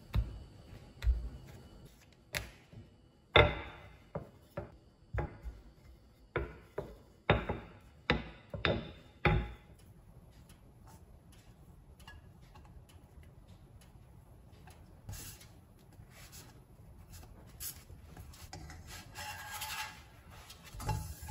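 Kitchen handling sounds of flatbread dough being worked on a silicone baking mat, with a run of light knocks and rubbing through the first half. Then it goes quieter while the raw flatbread is laid in a nonstick wok and moved with a spatula, with a brief scrape near the end.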